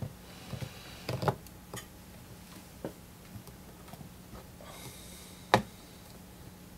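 Aluminium can of an old electrolytic capacitor being twisted and worked loose by hand from its scored base: scattered small clicks and creaks, then a sharp snap about five and a half seconds in as the can breaks free.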